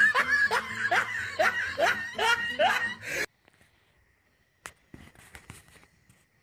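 A person laughing in a quick run of rising 'ha' bursts, about two a second, cut off suddenly about three seconds in; after it, a few faint clicks and one sharper click.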